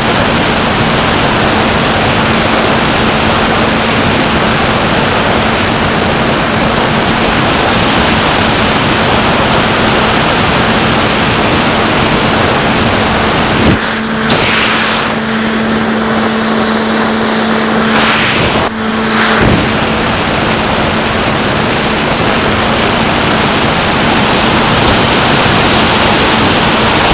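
Onboard audio of a SkyHunter FPV plane in flight: a steady rush of wind over the microphone with the steady hum of its electric motor and propeller. For several seconds a little past halfway the wind rush thins and the motor hum stands out more clearly.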